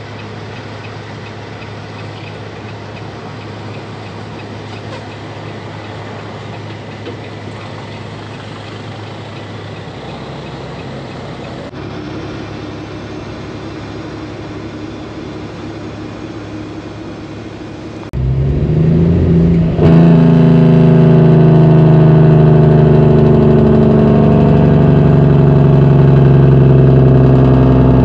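Semi truck's diesel engine running as the truck drives, heard from inside the cab: a steady low hum that turns much louder, to a strong steady drone, about eighteen seconds in.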